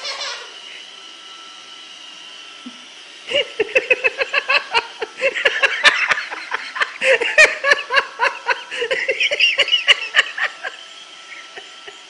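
Hearty laughter in rapid repeated bursts, starting about three seconds in and stopping near the end, over the steady high whine of a Roomba robot vacuum running.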